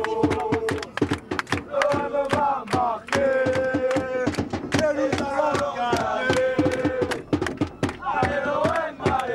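Football supporters chanting in unison, holding long sung notes, with sharp percussive beats keeping time throughout.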